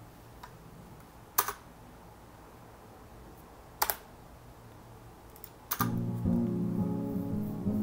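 A few separate computer keyboard clicks over quiet room tone, then about six seconds in a music track starts playing back from the Pro Tools session.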